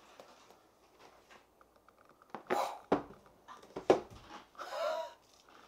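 Mostly quiet room, with a few short clicks and rustles about halfway through as a mirrorless camera with a kit lens is picked up and handled.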